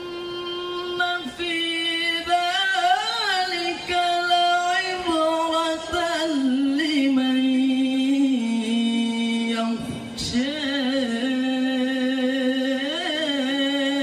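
A male qari reciting the Quran in melodic tilawah style through a microphone and PA, in a high voice. He holds long drawn-out notes with quavering ornaments, the pitch stepping down over the first eight seconds, then takes a short breath near ten seconds and starts another long held phrase.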